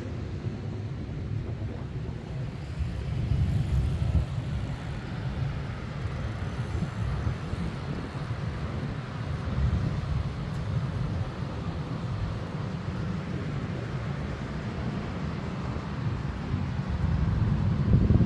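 Wind buffeting the microphone, an uneven low rumble that swells and drops, over a steady outdoor hiss.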